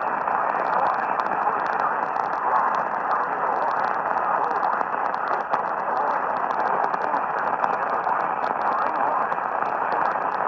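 Radio receiver static: a steady dull hiss with fast crackling ticks over it.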